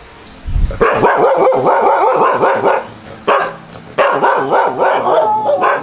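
A pack of shelter dogs barking together, many overlapping barks forming a loud chorus that starts about a second in, dips briefly around three seconds, then picks up again. A low thump comes just before the barking starts.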